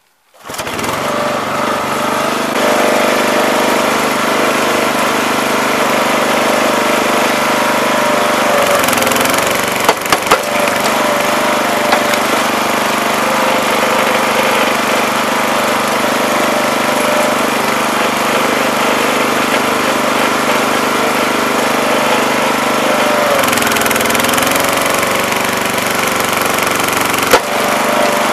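The Duerr wood splitter's small 5 hp engine catches almost at once and runs steadily, driving its new two-stage hydraulic pump. Its note sags briefly twice, about 9 seconds in and again around 24 seconds, as the wedge is loaded into a tough oak round, and a few sharp cracks come near 10 seconds and near the end.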